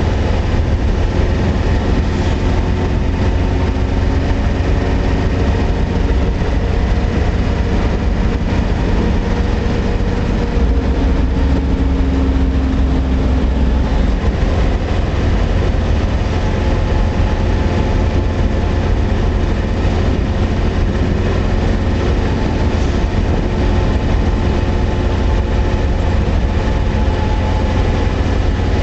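Steady low rumble of a vehicle's engine and tyres, heard from inside while cruising at highway speed. The deep drone swells a little for a few seconds near the middle.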